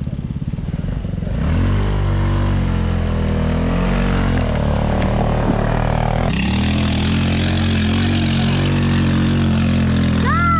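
Off-road buggy engine running unevenly at low revs, then revving up about a second and a half in and held at high revs, its pitch wavering. There is a sudden change in tone about six seconds in.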